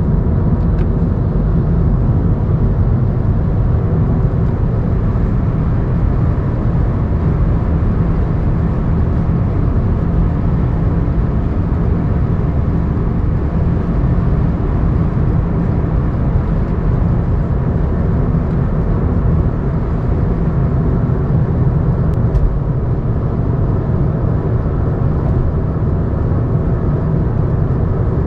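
Steady road and wind rumble of a moving vehicle, loud and even throughout, with no engine note standing out.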